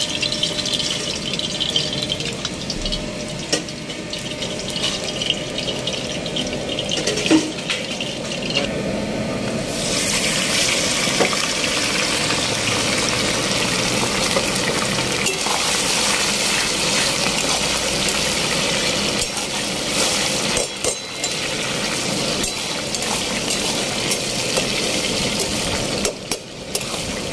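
Cooking oil heating in a steel karahi with a light crackle, then about ten seconds in chicken pieces go into the hot oil and it breaks into a loud, steady frying sizzle.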